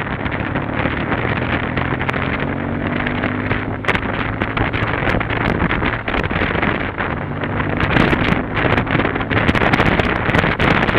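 BMW R 1200 GS Adventure's boxer-twin engine running steadily under way, heard under heavy wind buffeting on the microphone. The wind noise grows louder and more gusty about two-thirds of the way in.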